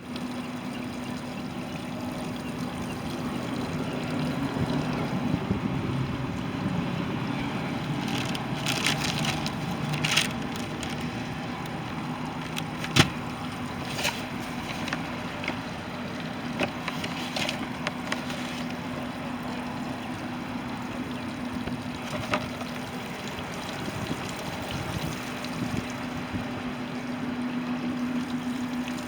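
Evinrude 120 outboard motor running steadily with water gurgling and trickling around it, and a few sharp knocks about halfway through.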